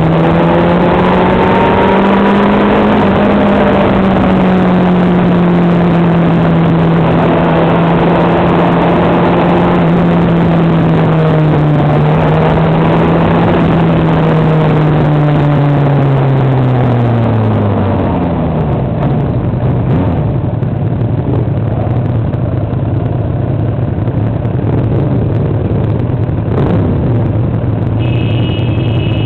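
Vehicle engine running at a steady speed over a constant rush of wind and road noise. About two-thirds of the way through its pitch slides down as it eases off, then it settles into a lower, steady drone.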